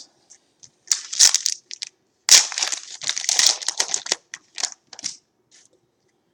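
A trading card pack's wrapper being torn open and crinkled by hand, in two crackling spells, the second longer.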